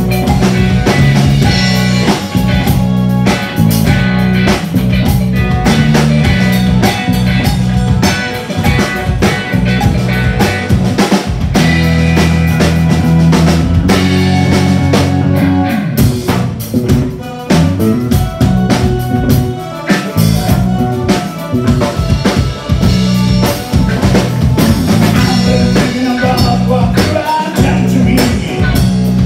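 Live rock band playing an instrumental passage: electric bass, distorted electric guitar and drum kit keeping a steady beat.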